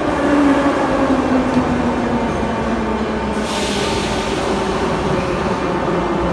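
Minsk Metro train humming loudly while standing at the platform before departure, its tone sliding slowly downward. About three and a half seconds in, a burst of air hissing comes in and fades over a couple of seconds.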